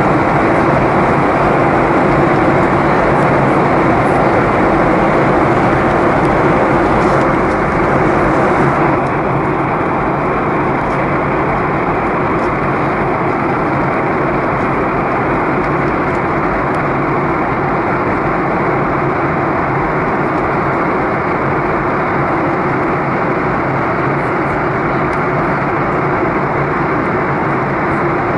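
Steady in-flight cabin noise of a Boeing 737-800: rushing airflow over the fuselage mixed with the drone of its CFM56 engines, heard from a window seat over the wing. It eases slightly and grows duller about nine seconds in.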